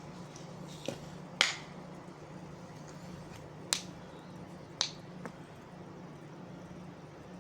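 Five sharp clicks spaced irregularly over a steady low hum, the second, about one and a half seconds in, the loudest.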